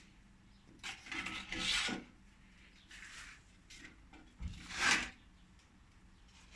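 Rough rasping, scraping strokes in two main bursts, about a second in and again near five seconds, the second starting with a low thump, with a fainter scrape between them.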